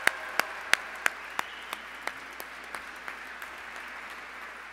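Audience applauding, with one set of sharp claps close by at about three a second standing out over the crowd. The applause slowly dies away.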